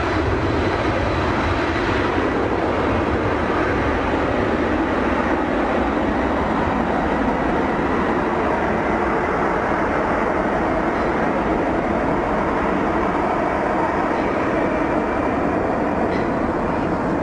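Four-engine Boeing 747 freighter's jet engines at takeoff power: a loud, steady rumble as the jet rolls down the runway and lifts off. The hiss on top eases slightly as it moves away.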